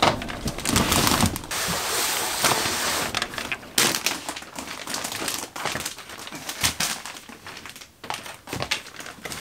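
Plastic vacuum storage bags full of clothes and loose clothing being handled and shifted around in a closet: irregular rustling and crinkling of plastic, broken by short knocks and clacks.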